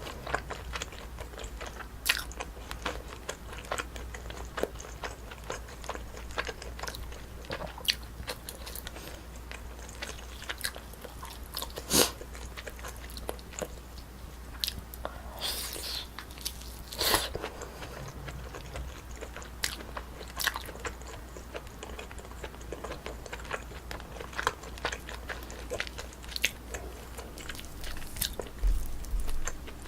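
Close-miked eating sounds: biting and chewing with wet mouth clicks scattered throughout, and a few sharper, louder clicks about 12 and 17 seconds in, over a steady low hum.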